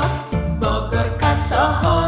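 Outro song: a sung melody over drums and bass.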